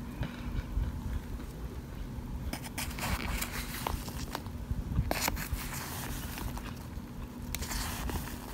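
Plastic spoon scraping and digging through a pan of oven-baked cornstarch chunks: dry scrapes and crunches in irregular bursts, the loudest about five seconds in.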